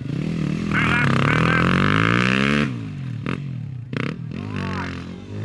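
An adventure motorcycle engine revving hard and easing off as the bike is powered around a tight turn in the dirt, rising in pitch over the first two and a half seconds, then dropping and climbing again. There are two sharp knocks about three and four seconds in.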